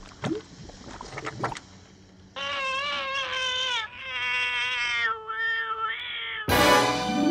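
A cat yowling in four long, wavering meows, after a second or so of scattered wet pops. Near the end a bright chiming hit of music comes in.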